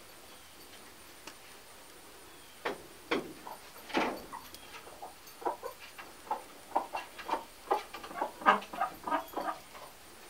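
Chickens clucking: short, irregular calls starting a few seconds in and coming faster through the second half.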